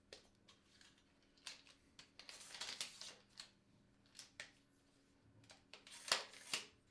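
Manfrotto Befree aluminium tripod legs being extended by hand: the flip-lock leg levers clicking open and shut and the aluminium leg sections sliding out. A longer sliding scrape comes about two and a half seconds in, and the two sharpest clicks come near the end.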